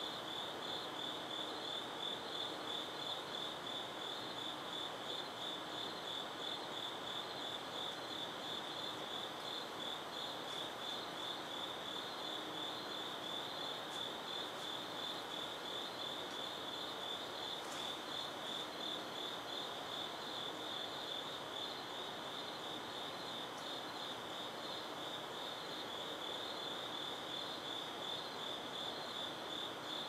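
Crickets chirping in a continuous chorus: a steady, high, finely pulsing trill that never lets up.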